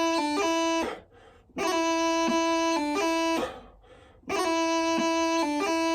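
Bagpipe chanter without drones playing the same short phrase three times: a few held notes broken by quick grace-note flicks, with a brief pause between each playing.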